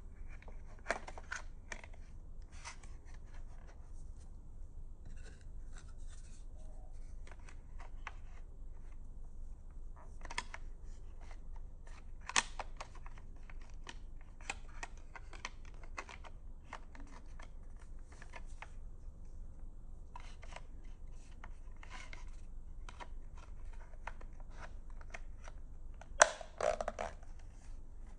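Scattered clicks, taps and scrapes of the plastic case and small parts of an old Sony pocket radio being handled and pried apart, over a low steady hum. The sharpest knock comes about 26 seconds in.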